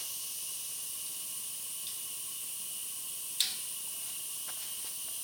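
Steady hiss of compressed air escaping from a slight leak at a fitting on the compressor's input joint, the tank still under pressure. A single sharp click about three and a half seconds in.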